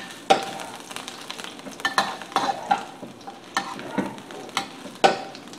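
Ginger strips sizzling in hot oil in a stainless steel wok, being fried until fragrant, while a metal spatula stirs them and scrapes and clinks against the wok at irregular intervals.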